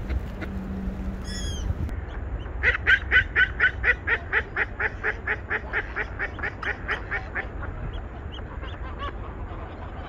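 A duck quacking in a long, rapid run of about five calls a second, loudest at first and fading away over a few seconds, over a low steady rumble.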